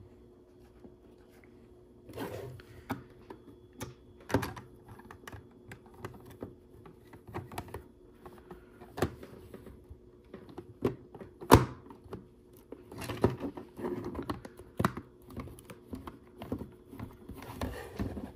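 LEGO plastic pieces being handled and pressed together: an irregular run of sharp clicks and light knocks, starting about two seconds in, with the loudest snap about two-thirds through.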